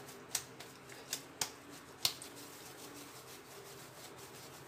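Oiled hands rubbing and working a soft ball of homemade air-dry clay, mostly soft and faint, with a few short sharp clicks in the first two seconds.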